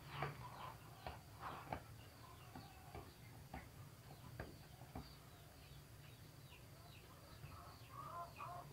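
Faint birds chirping in the background, short scattered calls, with a few soft clicks in the first half.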